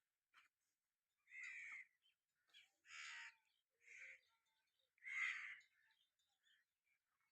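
A bird calling: four calls of about half a second each, roughly a second apart, with a few fainter short calls between.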